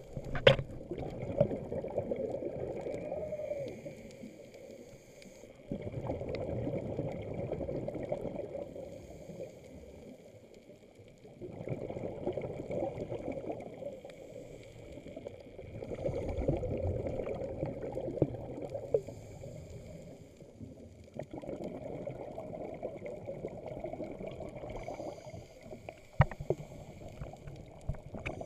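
Scuba diver breathing through a regulator, heard underwater: a gurgling rumble of exhaled bubbles swells every five seconds or so, with a short hiss of inhalation between the swells. A faint steady high tone runs underneath, and a few knocks come at the start.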